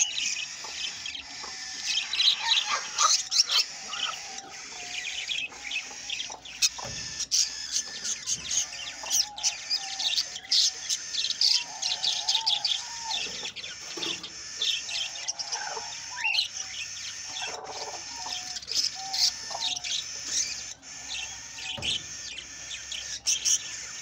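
Budgerigars chattering: a dense, continuous stream of quick high chirps mixed with lower warbling notes, with a few sharp clicks.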